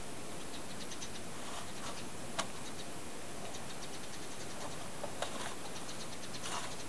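Scattered light ticks and scratches from a cat pawing and nosing an empty cardboard tissue box, over a steady hiss, with one sharper click about two and a half seconds in and a few more near the end.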